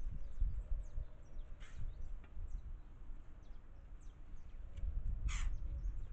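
Small birds chirping at a feeder in many short, high notes, with two louder harsh calls, one about one and a half seconds in and one about five seconds in, over a low wind rumble.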